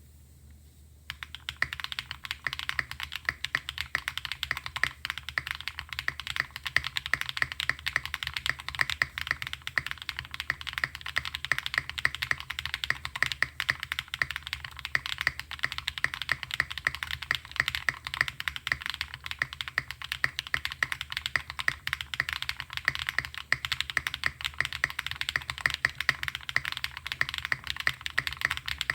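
Continuous fast typing on a GAS67 custom mechanical keyboard with linear Cherry MX Black switches on cream stems, lubed with 205g0, on a polycarbonate plate with a tape mod, starting about a second in. Rapid, dense keystrokes with no pauses.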